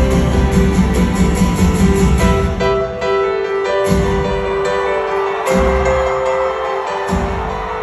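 Live band music heard from the crowd at a concert: full band with bass and drums at first, then from about two and a half seconds in mostly sustained keyboard chords, with a couple of brief low swells underneath.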